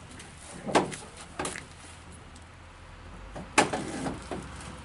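Sharp metal knocks and clunks from a truck cab door being fitted onto its hinges: a few separate knocks, the loudest about three and a half seconds in.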